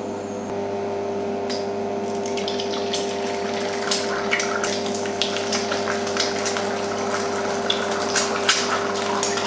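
Eggs frying in hot oil in a frying pan, sizzling and crackling with irregular pops that grow denser after the first few seconds. Under it, an induction hob hums with a steady tone from about half a second in.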